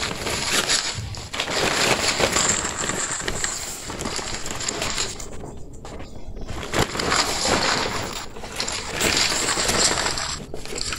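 Stiff gele head-tie fabric rustling and crinkling as it is handled close to the microphone. The sound stops briefly about halfway through and again near the end.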